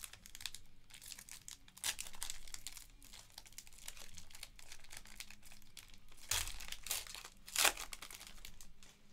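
Foil wrapper of a Panini Recon basketball card pack being crinkled and torn open by hand. There are sharper rips about two seconds in and twice more near the end, the last one the loudest.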